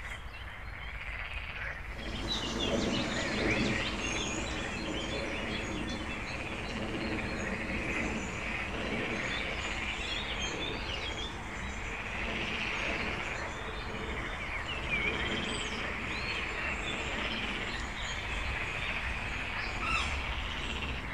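Marsh ambience: a chorus of frogs croaking that swells in about two seconds in, with small birds chirping over it and a low steady rumble underneath.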